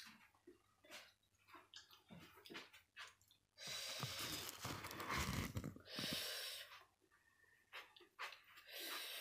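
Faint handling noise from a phone camera being picked up and carried: scattered soft clicks, then a few seconds of rustling hiss.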